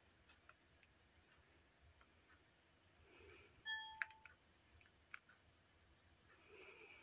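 Near silence: quiet room tone with a few faint scattered clicks. A little past halfway, a brief electronic beep sounds, followed at once by a sharp click.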